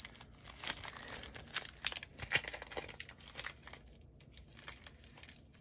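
Thin plastic packaging crinkling as a nail art sticker sheet in its clear sleeve is handled and turned over in gloved hands, a dense run of crackles that thins out after about three seconds.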